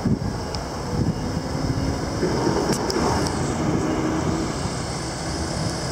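Wind rumbling on the microphone outdoors, with a faint steady hum from a distant engine underneath and a couple of small ticks about halfway through.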